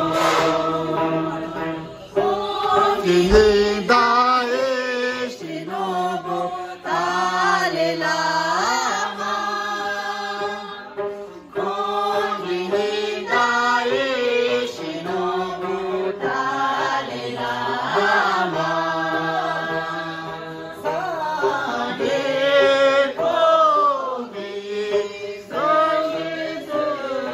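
A group of voices singing a slow, melodic chant, with several voices at different pitches gliding together.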